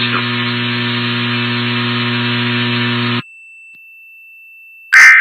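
A steady electrical buzz on a muffled broadcast feed cuts off abruptly about three seconds in. Near the end comes one short, loud screech of Emergency Alert System SAME data tones, the first of the brief end-of-message (NNNN) bursts that close an EAS test.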